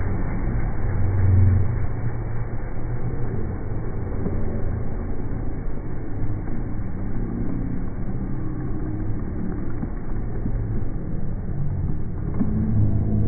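Steady low rumble of race-escort motorbike engines, slowed down so the sound is pitched very deep.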